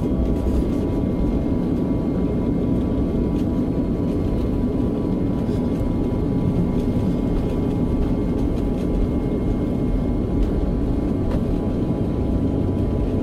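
Airliner cabin noise heard from inside the plane: a steady rumble and hum of the jet engines and airframe as the aircraft rolls along the ground, with a faint steady whine above it.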